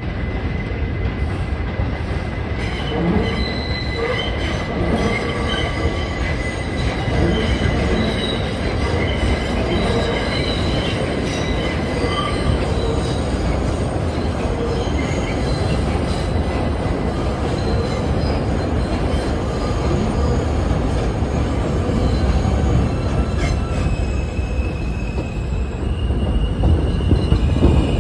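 New York City Subway trains on the elevated tracks: steel wheels squealing in wavering high-pitched tones over a steady rumble of wheels on the structure. Near the end a train running alongside the platform grows louder.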